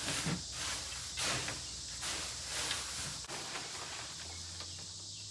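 Hay bedding rustling and scuffing in short bursts as it is moved about; the rustling dies down about three seconds in, leaving a faint low hum.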